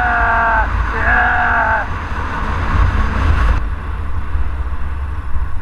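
A man's long, high-pitched shouts of "Yeah!", twice in the first two seconds, over a 125 cc motorcycle's engine drone and wind rush on a helmet microphone. After that only the engine and wind noise remain.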